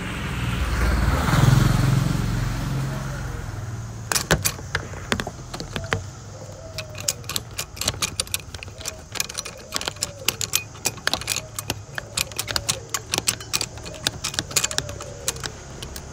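A passing motor vehicle swells and fades over the first few seconds. Then, from about four seconds in, comes a long run of sharp, irregular clicks and rattles close to the microphone: the phone being handled and adjusted in a plastic handlebar bike mount.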